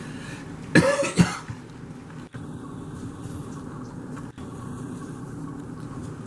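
A person coughing twice in quick succession about a second in, over steady low background noise.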